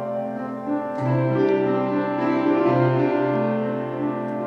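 Piano accompaniment playing alone, holding sustained chords through a short instrumental passage between sung lines of a hymn.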